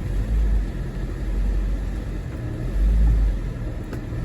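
Chevy Equinox engine running at low speed as the SUV is driven slowly up onto drive-on ramps. It is a low, steady rumble that swells twice, about half a second in and again about three seconds in, as throttle is given to climb.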